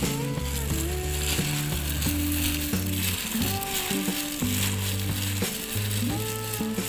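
A plastic-bag-covered hand kneading glutinous rice flour and grated coconut in a steel bowl, a steady crinkly rustling. It runs under background music of held notes that step from pitch to pitch.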